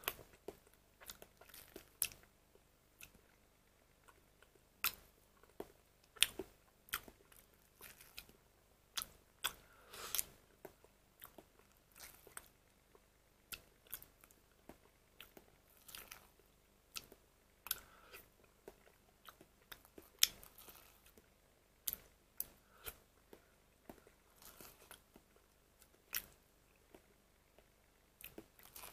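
Someone eating chocolate cream pudding from a plastic cup with a spoon: irregular sharp clicks and small wet mouth sounds, one or two a second.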